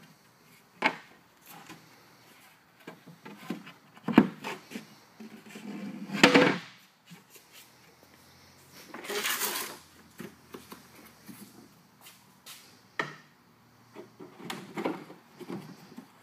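Wooden boards being handled and fitted into a wooden box frame: a series of separate knocks and clatters, the loudest about six seconds in, with a scraping slide lasting under a second about nine seconds in.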